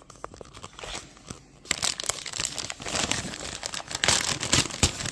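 Packaging of a fish cake gift box being handled and unwrapped, a dense run of crackles and rustles that is sparse for the first couple of seconds, then busier and louder.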